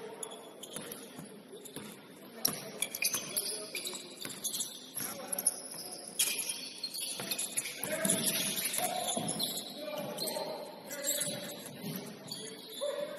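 Basketball game in a gym: the ball bouncing on the court amid scattered sharp knocks, with players' indistinct shouts and calls.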